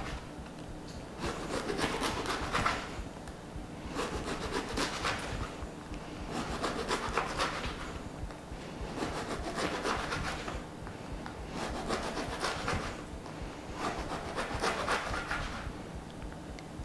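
A knife sawing through a loaf of French bread on a cutting board, the blade rasping through the crust. Six bursts of back-and-forth strokes, one slice every two to three seconds.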